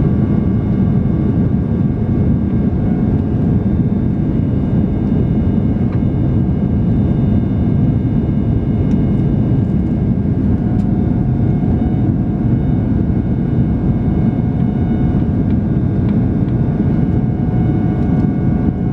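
Cabin noise of a Boeing 767-300 in flight: a loud, steady low rumble of the engines and airflow, with several thin, steady whining tones from the engines above it.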